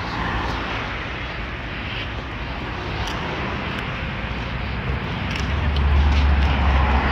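Outdoor background noise from a handheld phone, a steady rushing hiss, with a deep low rumble that swells about five and a half seconds in.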